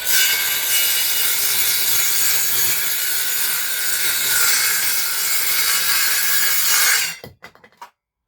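Teeno cordless circular saw cutting through a piece of chipboard, its blade running steadily through the board. The cut ends and the noise dies away about seven seconds in.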